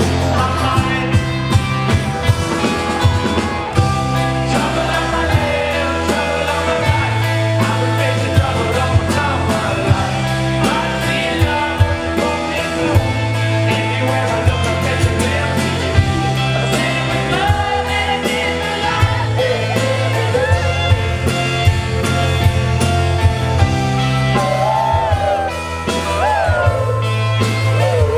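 Live rock band playing through a festival PA, heard from the crowd: a male lead singer over electric guitars, keyboard, a steady drum beat and bass line.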